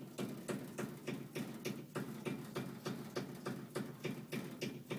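Air conditioner unit making a rapid, even thumping, about four to five knocks a second, a thump that carries through its vibrating copper pipe though it does not come from the pipe itself.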